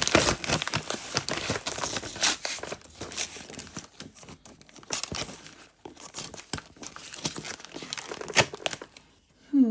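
Packing material being crumpled, rustled and torn by hand while a box is unpacked, in irregular crackling handfuls with a few sharper rips, followed by a brief vocal sound just before the end.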